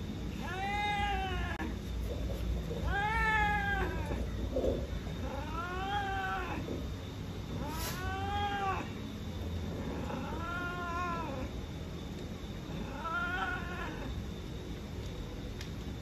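Cats mating: a cat yowling over and over, six long drawn-out yowls about two and a half seconds apart, each rising then falling in pitch, the caterwauling of a female in heat being mated.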